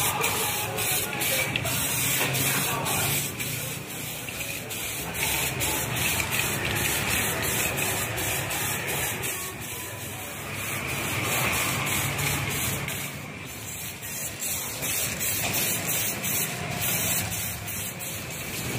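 Aerosol spray-paint can hissing as paint is sprayed onto a metal fuel tank, in long bursts that swell and ease every few seconds.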